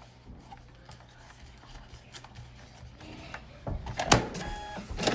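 Brother QL-820NWB label printer running and feeding a label out, a whirring motor with short stepped tones, with a sharp click about four seconds in and another near the end.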